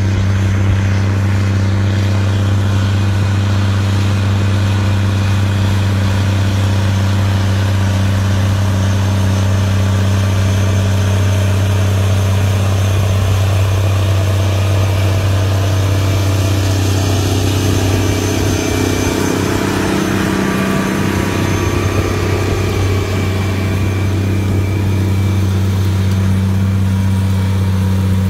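Big Bud 16V-747 tractor's Detroit Diesel 16V-92 two-stroke V16 running steadily under load as it pulls a tillage implement: a steady, loud low drone that dips briefly a little past two-thirds of the way through.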